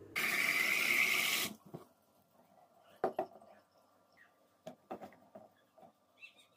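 Water pouring, a steady rush about a second and a half long that stops abruptly, followed by a few faint light knocks.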